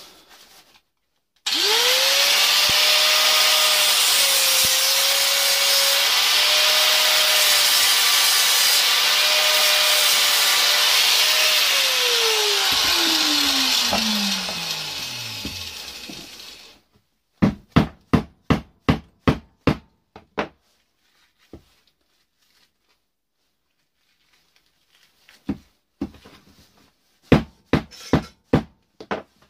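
Angle grinder starts and runs with a steady whine and hiss as it cuts into a small motor armature to get at the copper; about 12 s in it is switched off and its whine falls away as the disc spins down. A quick run of about ten sharp hammer strikes follows, then a few more near the end.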